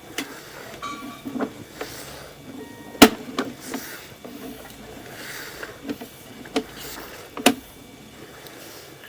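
Irregular knocks and clicks from a sewer inspection camera and its push cable being fed along the pipe, with two sharp clacks standing out, about three seconds in and again about seven and a half seconds in.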